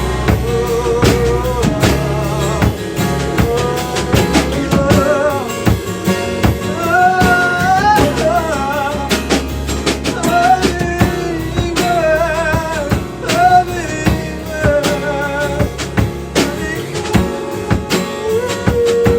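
A band playing a song live: a drum kit keeps a steady beat under guitar, while a melody line with vibrato is sung over it without clear words.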